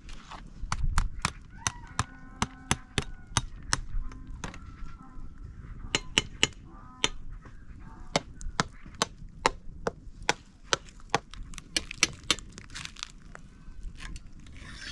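Wood cooking fire crackling, with many sharp irregular pops. A few short honking calls of domestic fowl come about two seconds in and again about six seconds in.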